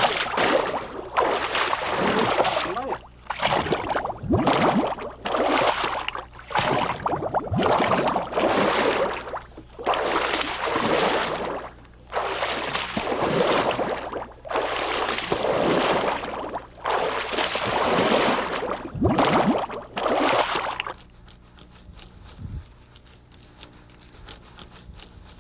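Porcelain clay slurry, clay dissolved in water, scooped with a wooden ladle and poured, sloshing and splashing in repeated pours about every two seconds. The pouring stops about 21 seconds in and it goes much quieter.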